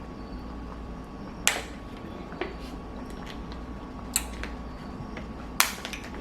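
Steady low room hum with three short, sharp clicks or taps: one about a second and a half in, one about four seconds in, and one near the end.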